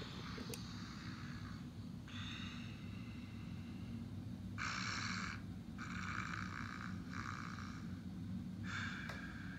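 Sound decoder of a Trix 22913 Est HO-scale steam locomotive playing steam exhaust chuffs as uneven hissing puffs, about one a second. Under them runs the steady low rumble of the model train rolling on the track.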